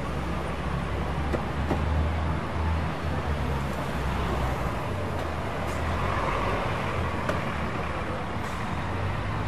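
Busy city street traffic: cars and taxis driving past, a steady low rumble of engines and tyres.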